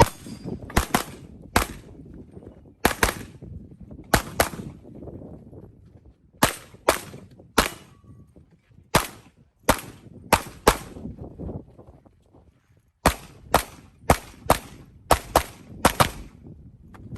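Handgun shots fired in a rapid string during a practical-shooting (IPSC) stage: about twenty sharp reports, many in quick pairs, with short pauses between groups as the shooter moves from target to target.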